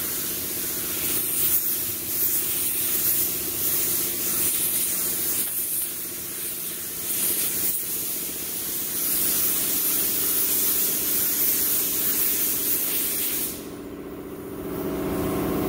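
Harbor Freight Black Widow paint spray gun hissing steadily as compressed air atomises paint onto a bumper, with small dips between passes. The spray stops near the end, and a steady mechanical hum comes up after it.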